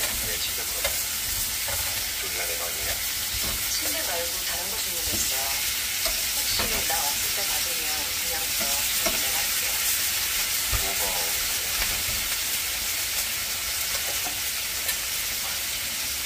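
Thin slices of meat sizzling in an oiled cast-iron grill pan, a steady frying hiss, with a few short sharp clicks as metal tongs turn the slices against the pan.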